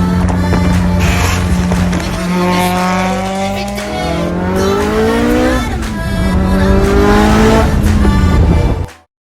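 Car engine under hard acceleration: it holds a steady pitch at first, then climbs steeply, drops sharply once about six seconds in as it shifts up a gear, and climbs again before the sound cuts off abruptly.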